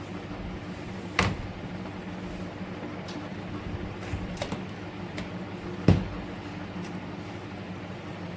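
A steady low mechanical hum, with two sharp knocks, one about a second in and a louder one about six seconds in, and a few lighter clicks between them.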